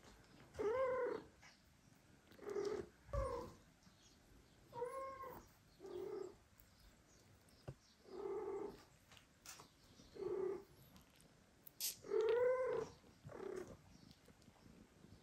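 A cat meowing over and over: about nine short calls, each rising and then falling in pitch, roughly every second and a half. A single dull thump comes about three seconds in.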